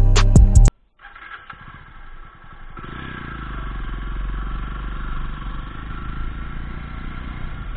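Background music cuts off in the first second. Then a motorcycle engine running, muffled, getting louder about three seconds in as the bike pulls away and rides off.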